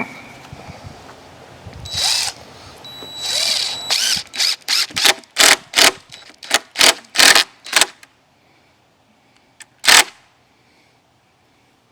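Power drill driving a screw into wooden boards: two short runs, then a quick series of brief trigger pulses to seat the screw, and one last short burst near the end.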